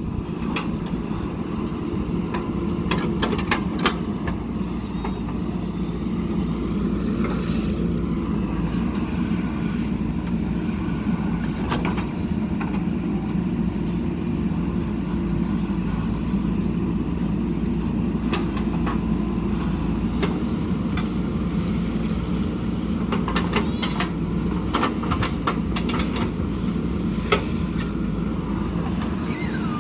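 Diesel engine of a JCB 3DX backhoe loader running steadily under work, with scattered sharp knocks and clanks and a cluster of them near the end.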